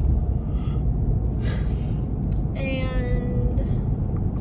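Steady low road and engine rumble inside a moving car's cabin. A short breath sounds about a second and a half in, and a wordless vocal sound, held for about a second and falling slightly, comes just past the middle.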